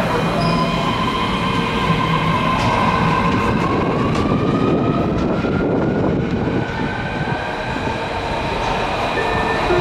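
Osaka Metro Midosuji Line subway train pulling out of the station: the whine of its traction motors rises steadily in pitch as it accelerates, over the rumble of its wheels on the rails.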